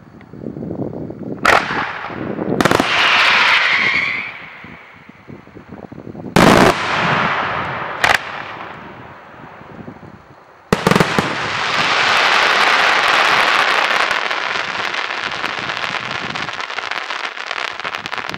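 Daytime fireworks display: sharp, loud shell bursts about one and a half, three, six and a half, eight and eleven seconds in, each followed by a crackle of many small reports. From about eleven seconds on the crackling runs dense and continuous.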